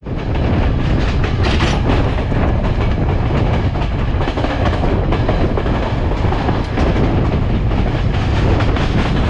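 A passenger train running at speed, heard from beside the moving coach: a steady heavy rumble of wheels on the rails, with repeated clicks as the wheels cross rail joints. A brief sharper, hissing surge comes about one and a half seconds in.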